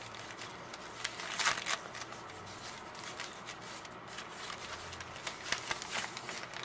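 Packaging rustling and crinkling as soap bars are handled and unwrapped, with the loudest crackle about a second and a half in and more crackles near the end.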